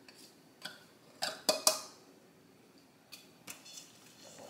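Metal utensil clinking and scraping against bowls: a few sharp taps as flour is scraped out of a small glass bowl into a stainless steel mixing bowl, then softer scraping near the end as a fork starts mixing the flour into the salmon.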